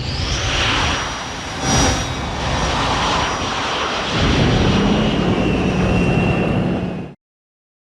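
Film sound effect of the giant robot MOGUERA's jet thrusters: a steady jet roar with thin high whining tones above it, swelling briefly about two seconds in. It cuts off abruptly about seven seconds in.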